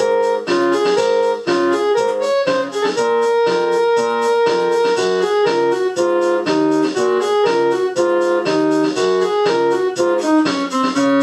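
Instrumental music led by a keyboard, playing a quick run of notes with one note held for a couple of seconds partway through.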